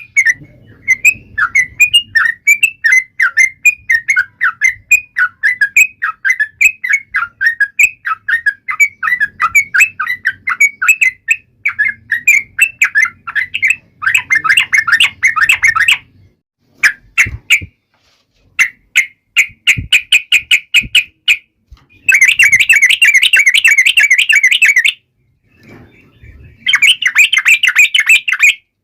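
Yellow-vented bulbul (trucuk) calling hard in a rapid chatter of short notes, turning into scattered sharp notes and dense bursts of very fast calls in the second half, separated by brief silences.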